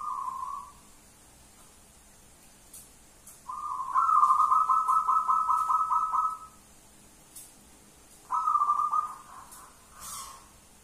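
Zebra dove (perkutut) cooing its rapid, pulsing song in three bouts: a short one at the start, a long one of about three seconds in the middle, and a shorter one near the end.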